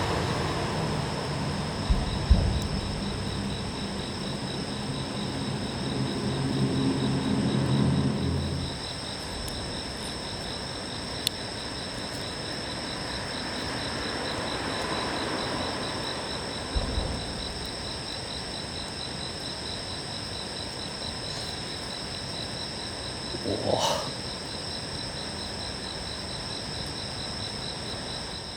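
Insects chirping steadily in a dense, high, even ringing. A low droning hum runs under it for the first nine seconds or so and then stops. A few soft knocks come through, one near two seconds and another near seventeen.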